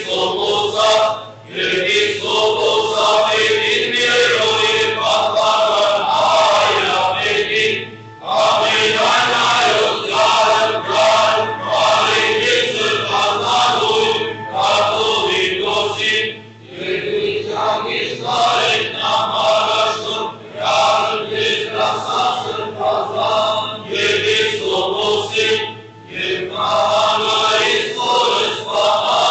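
Armenian liturgical chant: a choir of voices singing in long phrases, with short pauses between them.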